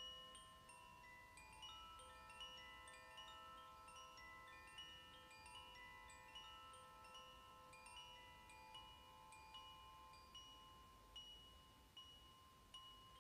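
Koshi wind chime ringing softly, its tuned rods struck at random so that clear, sustained notes of a few fixed pitches overlap, with two or three new notes a second.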